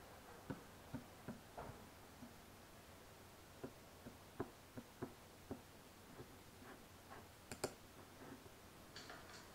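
Faint, irregular clicks of a computer mouse, about a dozen spread through a near-silent room, the sharpest one about three quarters of the way through.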